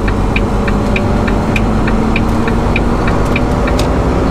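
Semi-truck cab: the diesel engine running steadily while the turn signal ticks about three times a second, stopping near the end as the turn is completed.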